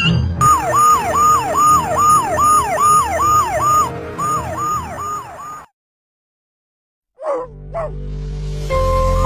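Siren wailing in fast cycles of about two a second, each rising sharply and falling back, stopping abruptly about halfway through. After a second or so of silence there are two quick rising sweeps, then background music.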